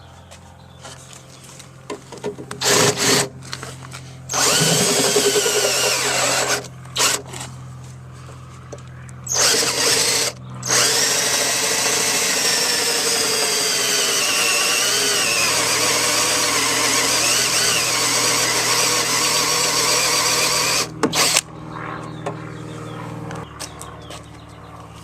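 Cordless drill boring into the sheet-metal of a minivan door: several short bursts, then one long run of about ten seconds whose pitch wavers as the bit loads up, and two quick blips at the end.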